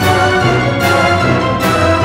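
Background music with a steady beat: held notes with a sharp hit on the beat about every 0.8 seconds.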